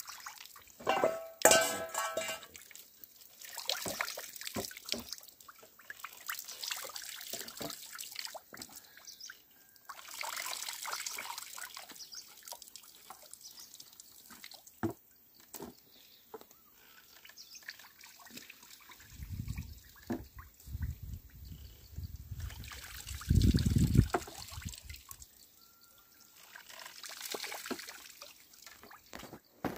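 Oil trickling and dripping from a traditional wooden lever oil press as the beam squeezes a cloth bag of seed mash, with scattered knocks from the wooden pole and plank. A sharp loud knock comes about a second in, and a low rumble comes around twenty seconds in.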